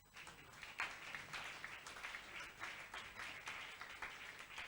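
Congregation clapping and applauding, many hands in a dense, irregular patter.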